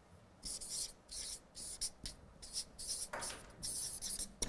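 Marker pen writing on a flipchart pad: a series of short scratchy strokes, about eight in four seconds, with a sharp tick near the end.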